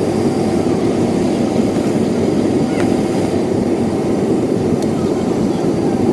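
Steady jet engine and airflow noise heard inside a jet airliner's cabin during the descent toward landing.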